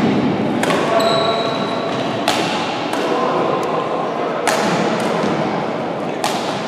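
Badminton rackets striking a shuttlecock during a doubles rally: several sharp hits about a second apart, each echoing in the large hall, over a steady murmur of voices.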